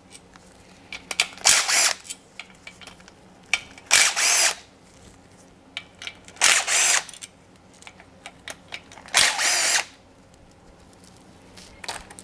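Impact gun with a 10 mm socket running in four short bursts of about half a second, a few seconds apart, spinning out the water pump bolts on a Honda J30A4 V6 block one at a time, with small clicks of socket and bolts between.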